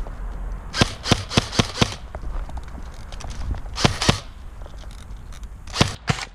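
Airsoft guns firing: a quick string of about five sharp shots about a second in, then two shots near the middle and two more near the end.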